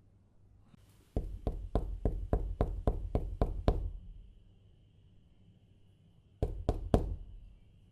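Knuckles knocking on a door: a run of about ten even knocks at roughly four a second, then, after a pause of about two and a half seconds, three more knocks.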